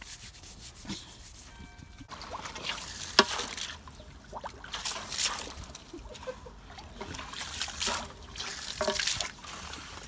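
Pigs sloshing and splashing in a shallow water tray, in irregular bursts, with one sharp knock about three seconds in.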